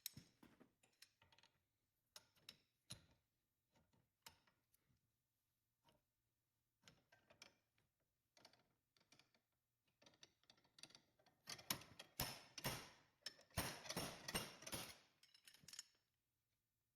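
Faint metal clicks and taps of hand tools working at a bearing race in the winch housing: scattered single clicks, then a run of quick light taps and clinks about twelve to fifteen seconds in.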